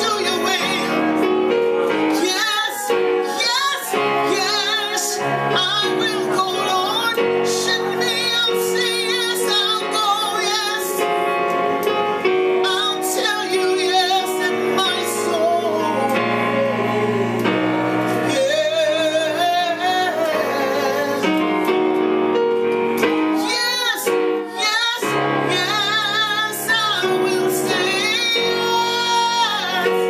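A woman singing solo, holding notes with vibrato, while accompanying herself on an electronic keyboard played with piano-like chords.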